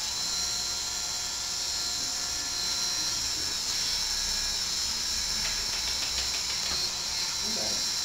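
Small handheld electric rotary tool running with a steady high whine while it grinds down an African grey parrot's nails.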